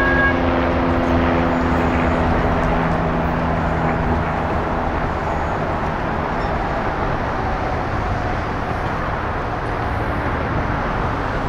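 Steady traffic noise from the freeway overhead. A steady ringing tone, likely the crossing bell, stops just at the start, and a low hum fades out over the first four seconds or so.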